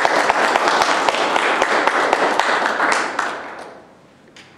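Audience applauding, a dense patter of many hands clapping that dies away after about three seconds.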